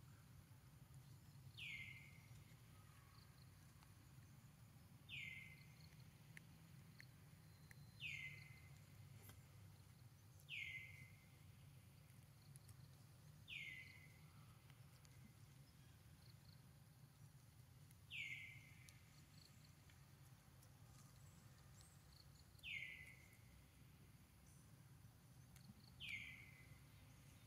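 A bird calls faintly, a single short falling note repeated eight times at uneven gaps of a few seconds, over a low steady hum.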